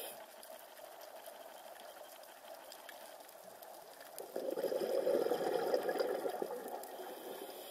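Muffled underwater sound picked up by a diving camera: a soft hiss, then about four seconds in a bubbling rush that lasts around three seconds and fades, the exhaust bubbles of a scuba diver breathing out through a regulator.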